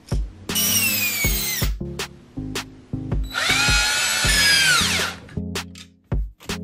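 Cordless drill driving screws, heard as two runs of motor whine: a short one about half a second in, its pitch falling as it goes, and a longer one from about three seconds in that winds down in pitch near the five-second mark. Background music with a steady beat plays throughout.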